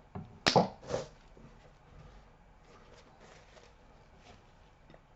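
Two short, loud rushing noises about half a second apart, then faint rubbing and light ticks: hands working with isopropyl alcohol to clean old thermal paste off a laptop chip.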